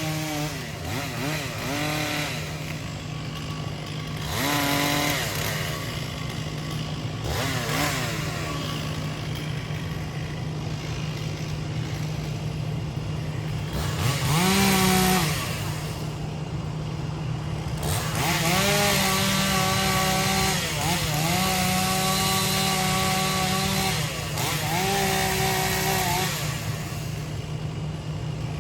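Volvo EC140 excavator working: a steady diesel drone under a hydraulic whine that rises in pitch and holds, again and again as the hydraulics take load. Several bursts of rushing, crackling noise come over it.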